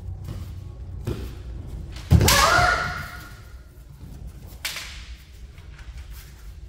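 Kendo bout with bamboo shinai. A sharp shinai clack comes about a second in. About two seconds in comes the loudest event: a hit with a foot stamp on the mat and a loud shout (kiai) that rises in pitch and is held for about a second. Another short shinai clack follows a couple of seconds later.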